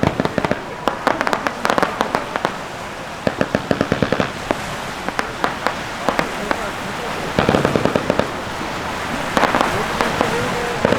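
Aerial fireworks display of spherical shells going off: rapid bangs and crackling come in several bursts, a dense burst about seven seconds in and another near the end.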